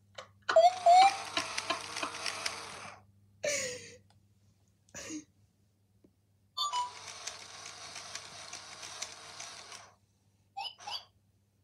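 Electronic sounds from two robot toy dogs, a Sony Aibo ERS-1000 and a Mio Pup: two long stretches of busy electronic chatter and beeps, each about three seconds, with short chirps between them and two quick chirps near the end.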